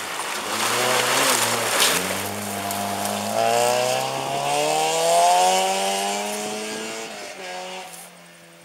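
Rally car driving hard over a gravel stage: engine at high revs with gravel spraying under the tyres as it slides through the corner, then the engine note rising steadily as it accelerates away. Near the end the pitch drops at a gear change and the sound fades into the distance.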